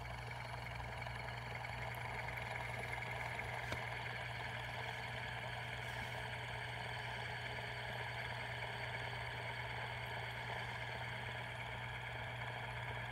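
Metal fidget spinner spinning flat on a tabletop, its bearing giving a steady whir with a low hum under it.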